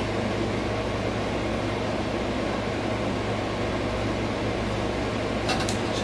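Steady mechanical hum and hiss of room background noise, with a constant low drone underneath. No cracks, pops or knocks.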